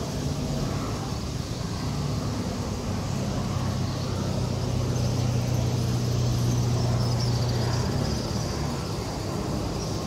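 Street traffic noise, with a vehicle engine's steady low hum lasting several seconds in the middle. Faint high twittering of a large flock of swallows comes from overhead.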